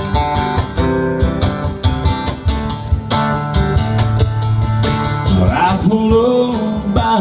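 Acoustic guitar strumming chords with a cajon keeping a steady beat: an instrumental break in an acoustic country song.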